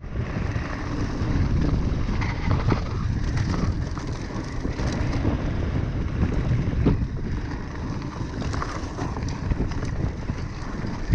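Mountain bike riding a dirt singletrack, heard through an action-camera microphone: steady wind buffeting and rumble, with scattered sharp clicks and rattles from the bike over bumps.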